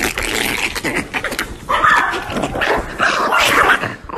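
A small fluffy dog vocalising in yips and whining barks, loudest from about halfway through.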